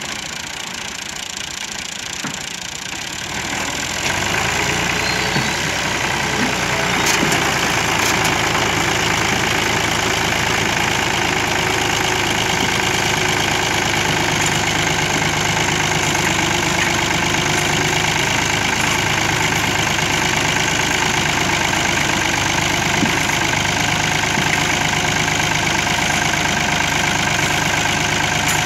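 New Holland 480 (Fiat-type) tractor's three-cylinder diesel engine working hard to haul a sand-loaded trolley out of deep sand, the front wheels lifting under the strain. The engine gets louder about four seconds in, then holds steady.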